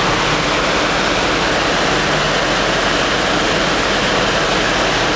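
Loud, steady engine-room machinery din aboard a container ship, an even roar of noise with a low steady hum underneath.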